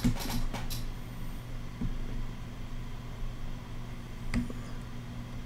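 Steady low electrical hum with faint room hiss, broken by a few small clicks near the start, about two seconds in and again just past four seconds.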